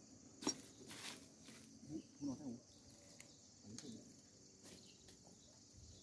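Insects chirring steadily at a high pitch, quiet overall, with a sharp knock about half a second in, a second one near one second, and faint murmuring a little after two seconds.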